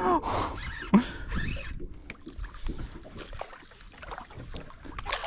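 A hooked fish splashing at the water's surface as it is fought in beside a small fishing boat, with scattered clicks and knocks and a sharp knock about five seconds in.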